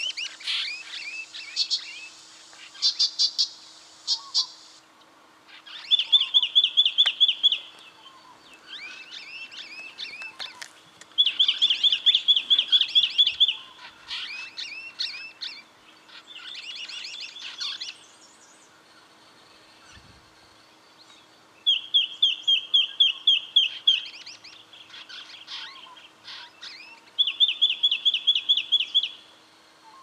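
Brown treecreeper calling: four runs of sharp, rapidly repeated high notes, each lasting about two seconds, with softer chirps and twittering between them.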